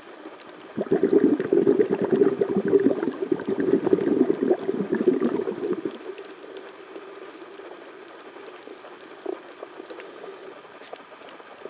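Scuba diver's exhaled bubbles from the regulator, heard through the underwater camera housing: a loud bubbling rush starting just under a second in and lasting about five seconds, then dying down to a quieter steady hiss.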